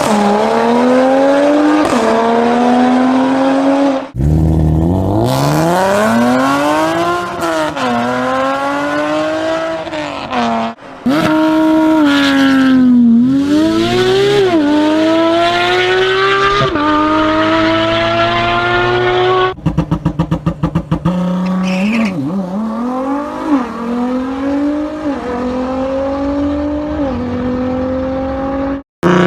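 Sports car engines accelerating hard, one short clip after another: each rises steadily in pitch and drops back at a gear change before climbing again. About 20 seconds in there is a rapid stuttering burst.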